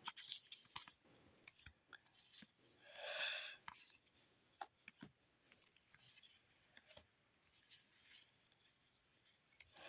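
Trading cards being shuffled and slid against one another in gloved hands: faint scattered paper clicks and rustles, with one longer, louder swish about three seconds in.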